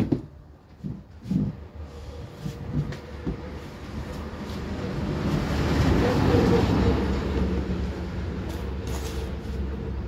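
A thump and a few knocks as a plastic washing machine cabinet is handled and tipped onto its side, then a steady low noise that swells to a peak midway and fades.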